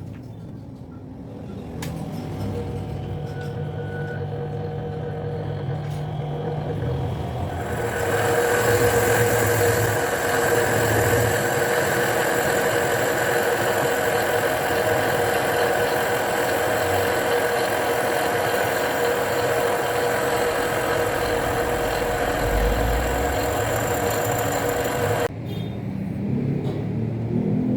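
Homemade table saw running, an electric motor driving a circular saw blade on an arbor. About eight seconds in it turns much louder and harsher with a steady whine for roughly seventeen seconds, then stops abruptly.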